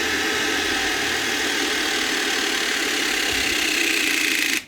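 Power tool motor running steadily under load, with a faint high whine that sags slightly late on, then stopping suddenly near the end.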